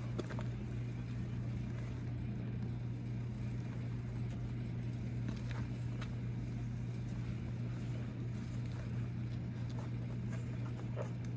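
Steady low mechanical hum that holds one pitch throughout, with a few faint short clicks scattered through it.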